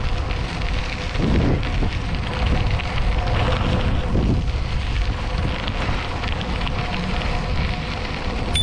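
Wind rushing over the microphone while riding a bicycle, a steady low rumble with light crackle from the tyres on the trail.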